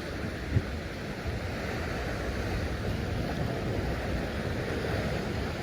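Ocean surf washing steadily, with wind on the microphone and one brief knock about half a second in.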